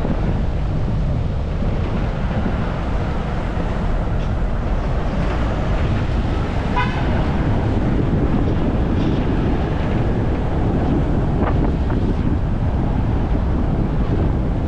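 Road and wind noise from a moving car, with wind buffeting the microphone. About seven seconds in there is one short toot of a vehicle horn.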